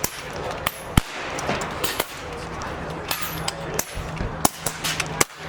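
PCP air rifles firing along a benchrest line: a dozen or so sharp shots at irregular intervals from several rifles, the loudest about a second in, over a low steady hum.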